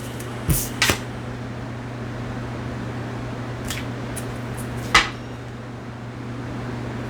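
Tarot cards being handled on a table as a card is drawn: a few short, sharp taps and clicks, the loudest about five seconds in, over a steady low hum.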